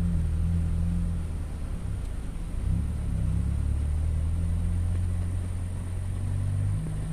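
Low, steady rumble of a vehicle engine, shifting slightly in pitch about a third of the way in and again near the end.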